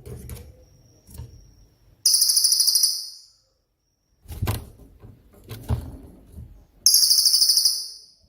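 Cililin songbird delivering two loud, very fast high-pitched trills about four seconds apart: its rapid burst song ('tembakan'). A few dull low knocks fall between the trills.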